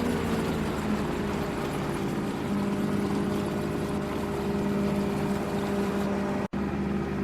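A farm machine's engine running steadily, its pitch dropping a little in the first second and then holding even; the sound cuts out for an instant near the end.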